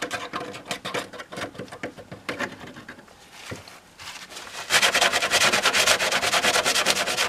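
Gloved hand rubbing over the back of a fiberglass (e-glass) motorcycle fairing, spreading freshly applied CA glue over cracks: scratchy, irregular strokes, then from about five seconds in a faster, louder run of rubbing.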